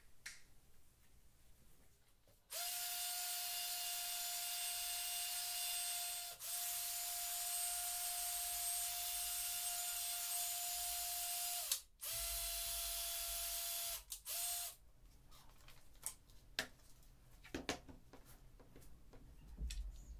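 Cordless drill spinning an ice auger through a right-angle gearhead salvaged from an angle grinder, running with a steady high whine. It starts about two and a half seconds in, cuts out briefly three times and stops about fifteen seconds in, followed by light clicks of handling.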